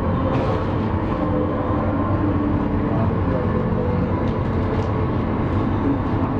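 Turbofan engines of a taxiing Boeing 777-200 airliner running steadily, a constant rumble with several held tones.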